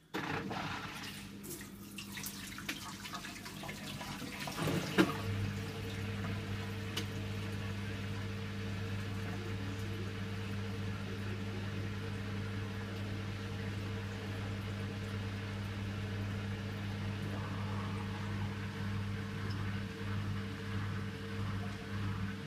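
Samsung top-load washing machine on a towels cycle, water running into the tub with a steady hum. The sound starts suddenly, and a sharp click about five seconds in is followed by a lower steady hum joining.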